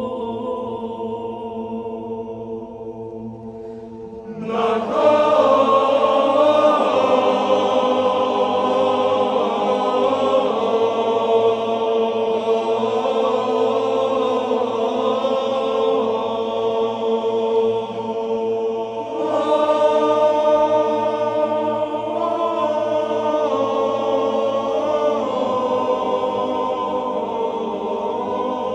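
Background choral chant: voices holding long notes over a steady sustained drone, swelling louder about four seconds in and again a little past the middle.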